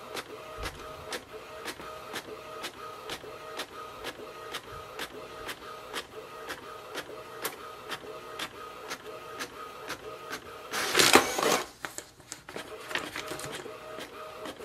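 Canon PIXMA TR150 portable inkjet printer printing a page: the print-head carriage shuttles back and forth with a regular ticking about three times a second over a steady motor whine. About eleven seconds in a louder, brief whirring rush comes as the finished page is fed out, and the ticking then starts again more faintly.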